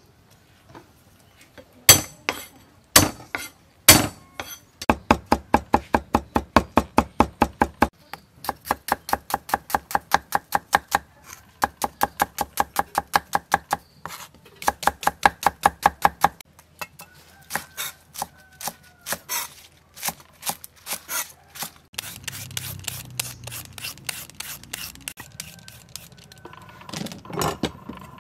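A knife chopping on a thick round wooden chopping block, mincing garlic and slicing shallots. A few heavy single chops come first, then a long run of rapid, even chopping at about five strokes a second. Later the cuts turn slower, irregular and quieter.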